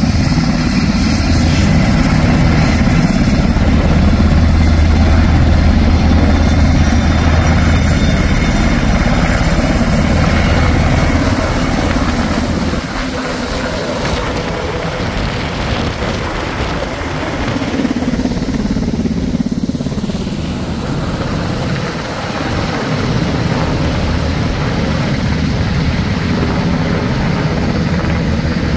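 UH-60 Black Hawk helicopters' twin turboshaft engines and rotor blades running, a loud steady rotor-and-turbine sound. A little before halfway the sound drops somewhat as a Black Hawk flies overhead and away, and it stays steady after that.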